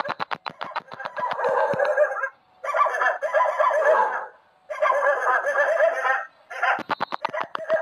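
A dog crying out in distress while being carried off by a big cat: four long, wavering cries of a second or two each, with fast, choppy yelps through the first two seconds and again near the end.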